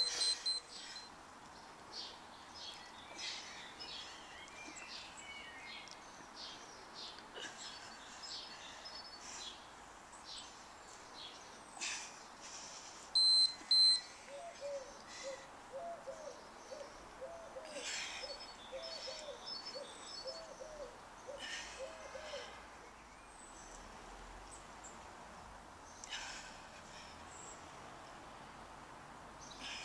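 Birds chirping in short high calls, with a run of about ten short, low calls in the middle. A loud electronic beep sounds about halfway through, typical of a workout interval timer.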